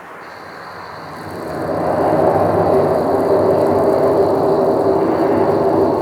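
A loud, low droning rumble from the sky that swells up over about a second and then holds steady, with a thin high whine over it; it is put forward as the unexplained sky 'hum' that is reported worldwide and said to sometimes come before earthquakes.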